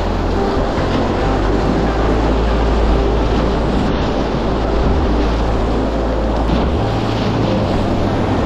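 Whitewater rapids rushing loudly around a packraft, with a low wind rumble on the microphone.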